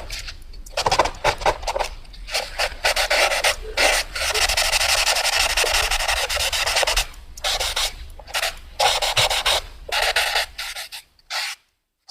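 Fast drawing on paper: quick scratching strokes of a drawing tool across the sheet. About four seconds in, one long unbroken stroke lasts some three seconds; then short strokes follow and stop shortly before the end.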